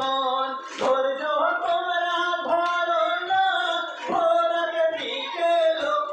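A group of male voices, men and boys, chanting a Bengali marsiya, a mourning elegy for Muharram, in slow held notes. A steady thump sounds under the singing a little more than once a second, the beat of hands striking chests (matam).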